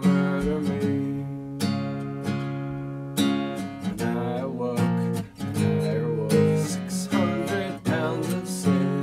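Acoustic guitar strumming chords, each strum struck afresh about every second or so, with no singing.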